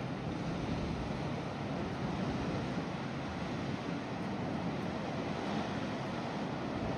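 Sea waves washing on the shore in a steady rush of surf.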